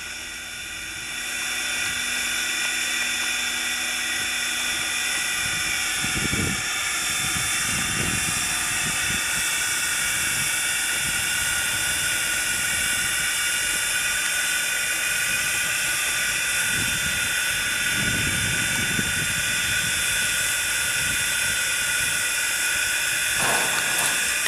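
Strasburg Rail Road No. 90's Reading six-chime steam whistle blowing one long, steady chord of several tones, building up over the first second or two and then held. A few low rumbles come and go underneath.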